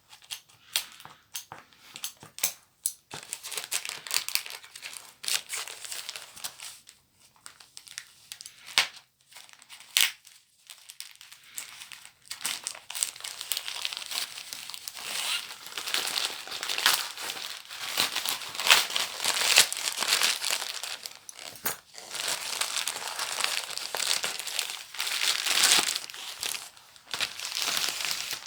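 Paper and plastic wrapping of a mail-order book parcel being crumpled and torn open, an irregular crinkling with sharp crackles. It is sparse at first and gets denser and louder about halfway through.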